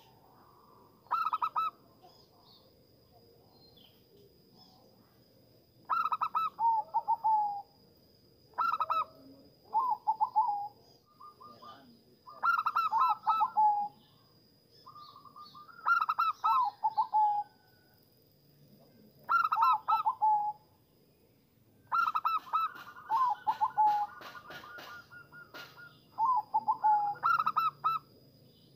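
Zebra dove (perkutut) cooing: about nine short phrases of quick, stuttering trilled notes, repeated every couple of seconds with quiet gaps between.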